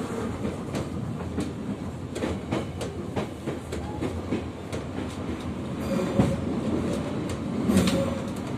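A type E metro car running at speed, heard from inside: steady rumble of wheels on rail with repeated clicks of the rail joints, growing louder near the end as the train runs into the tunnel.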